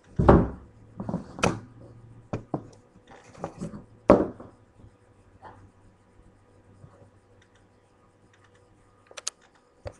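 Thumps, knocks and scraping as household items are set down and moved about on a wooden floor close to the microphone. The loudest thumps come just after the start and about four seconds in, and a few quick light clicks follow near the end.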